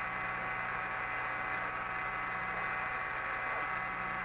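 Open radio channel from the spacecraft's air-to-ground downlink: a steady hiss with a low hum and a few faint steady tones, unchanged throughout.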